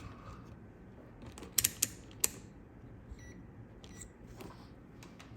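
A few sharp clicks, then two brief faint beeps from a multimeter being set up for a continuity check, over a steady background hum of an air-conditioning unit.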